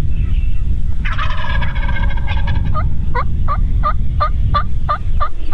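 Wild turkey gobbling once, a rattling call lasting about a second and a half, followed by a run of about nine short, evenly spaced yelping notes, roughly three a second. A steady low rumble runs underneath.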